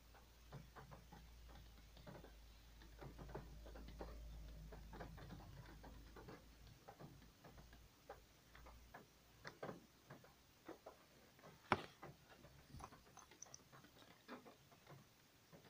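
Faint, irregular clicks and taps of hard plastic being handled: a screwdriver bit set and its plastic case turned over in the hands, with one sharper click about twelve seconds in.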